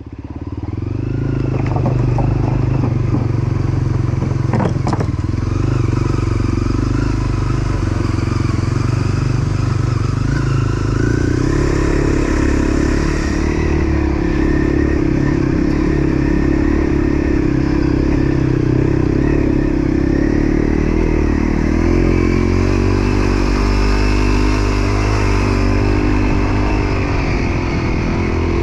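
Dual-sport motorcycle's single-cylinder engine running steadily at low revs on a rough dirt trail, the revs rising a little about halfway through. There are a few clattering knocks in the first seconds.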